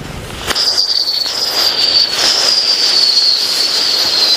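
Musical whistling firecracker going off: a loud shrill whistle starts about half a second in, holding near one high pitch and slowly sliding lower, over the hiss of burning.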